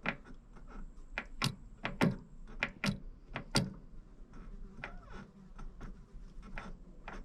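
Irregular sharp metallic clicks and knocks, roughly two a second and louder in the first few seconds, from the shaft-drive line of a Yamaha XVS 650 Drag Star being worked by hand. This is the loud knock that the owner is trying to trace, and he suspects play in the driveshaft's universal joint.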